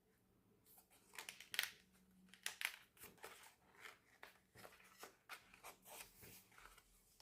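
Faint, scattered clicks and rustles of album packaging, paper and cards being handled and opened.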